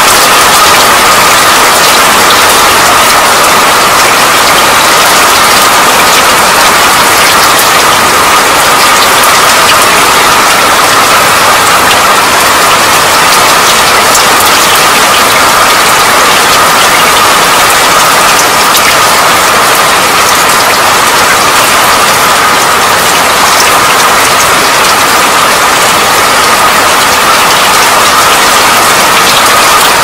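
Steady rain falling, a dense, even hiss with many small scattered ticks of drops, unchanging throughout.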